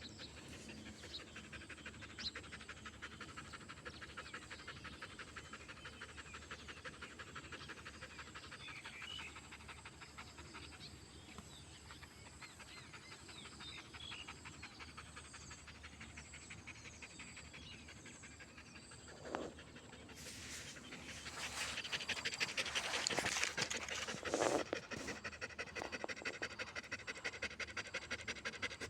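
Dog panting in quick, even breaths, the panting of a tired dog. It grows louder and rougher for a few seconds near the end.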